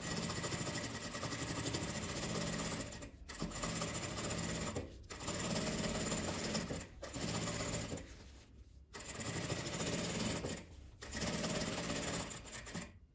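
Sewing machine stitching through layers of fabric, running in about six stretches of one to three seconds with brief stops between as the fabric is guided along the seam.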